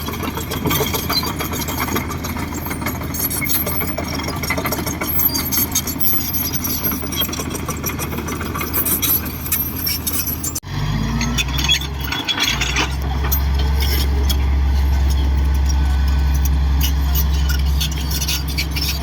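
Komatsu D58 bulldozer's diesel engine running under a dense metallic clatter. About ten seconds in the sound breaks off abruptly and gives way to a steady, deeper engine drone.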